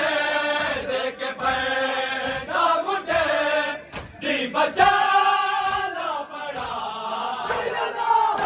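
A group of men chanting a Shia noha (lamentation) in unison, with a steady beat of hands slapping on chests (matam) running under the chant.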